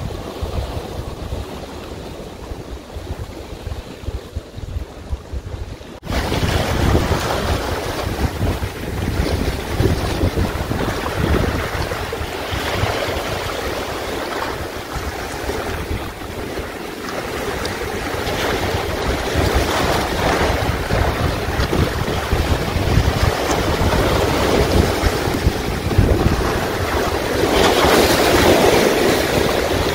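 Wind buffeting the microphone over waves washing against rocks, a steady rushing noise. It jumps louder about six seconds in and swells again near the end.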